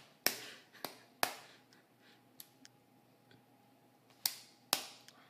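Bump hammer tapping a homemade bump key in a Master Lock padlock: five sharp metallic strikes, three in the first second and a half and two more near the end, each with a short ring.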